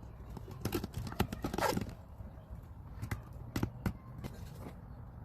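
Irregular clicks and knocks from wooden birdhouse pieces and tape being handled, with a busy cluster about a second in and a few sharper knocks around three to four seconds.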